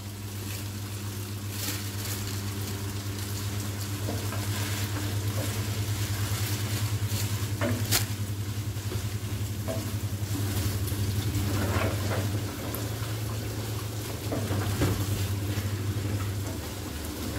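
Sliced mushrooms frying in oil in a non-stick frying pan, stirred with a wooden spatula: sizzling with scraping, and a sharp knock of the spatula on the pan about halfway through, over a steady low hum.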